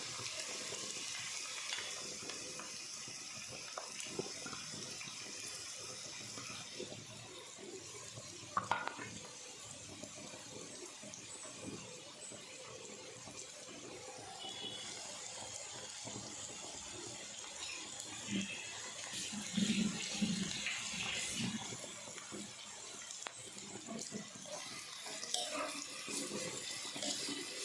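Chopped onions and green chillies sizzling in hot oil in a kadai, a steady hiss, with a short knock of a utensil about nine seconds in.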